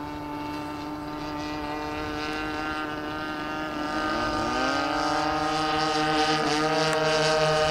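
Twin DLE 30 single-cylinder two-stroke gas engines of a large RC model plane in flight, a steady propeller drone that grows slowly louder. About halfway through, the engine note rises in pitch and then holds steady.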